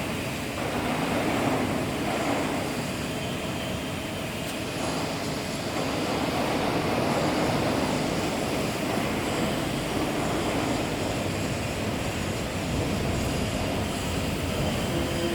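Steady machine running noise, an even rushing drone with no distinct strokes or impacts.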